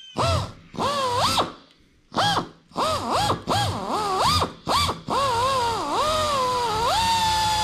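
Pan American Tool Corp 4000 RPM pneumatic air drill drilling out a 1/8-inch rivet from its shop-head side. It runs in a string of short bursts, its whine rising and falling as the trigger is feathered, then makes a longer, steadier run from about five seconds in.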